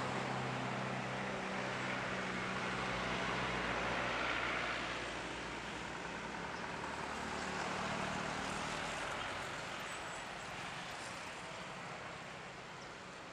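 Boeing 737-800's CFM56-7B turbofan engines running at taxi power: a steady jet rumble and hiss that grows a little quieter over the last few seconds.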